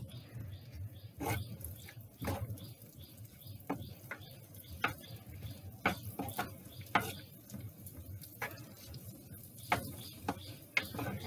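A wooden spoon stirring in a hard clay pot, knocking and scraping against its sides in irregular light taps, about one a second.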